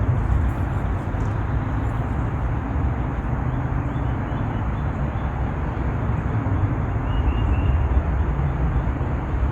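Steady low outdoor rumble with no clear single source, with a few faint high chirps about three-quarters of the way through.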